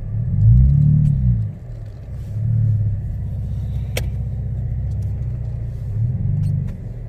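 Car engine revving up and back down three times over a steady low idle as the car works through snow, the first rev the loudest and longest, then a shorter one and another near the end. A single sharp click about four seconds in.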